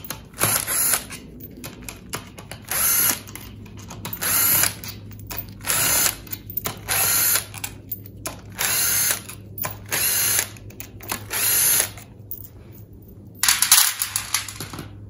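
Cordless impact driver running in about ten short bursts, one to two seconds apart, as it spins out the 7/16 in valve body bolts of a Chrysler A-904 automatic transmission.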